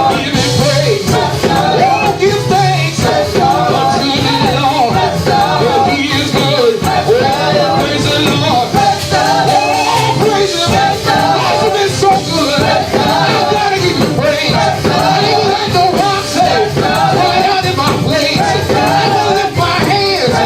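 Live gospel praise-and-worship music: a band playing steadily with singing over it.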